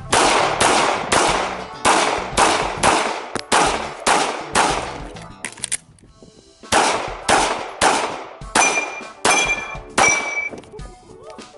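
Semi-automatic pistol fired rapidly in a course of fire, about a dozen and a half shots roughly half a second apart with a break of about a second midway. A metallic ring hangs after several of the later shots.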